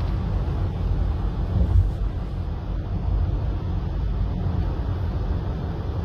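Steady low rumble of a car driving on the road, heard from inside the cabin.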